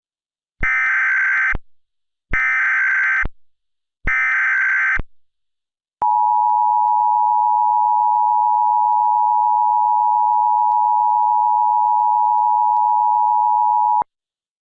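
Emergency Alert System tones. Three short, buzzy bursts of SAME header data, each about a second long, are followed by the two-tone EAS attention signal, held steady for about eight seconds before it cuts off sharply. The sequence signals that an emergency alert message follows.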